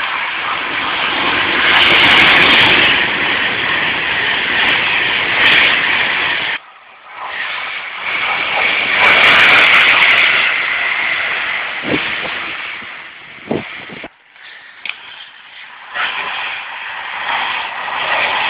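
Loud rushing noise of express trains running through a station at speed. It falls away twice with a few short knocks, then builds again near the end as an electric Pendolino approaches.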